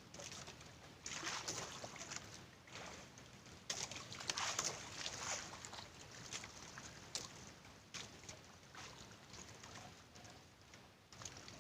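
Water splashing and sloshing around a small fishing boat in uneven surges, with a few sharp clicks.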